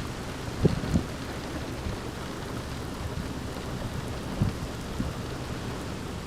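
Torrential thunderstorm rain falling steadily, over a low rumble, with a few short low thumps: about a second in and again near the middle.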